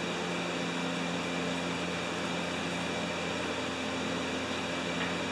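Steady machine hum with an even hiss and a few constant tones, unchanging throughout, like a fan or other appliance running in the background.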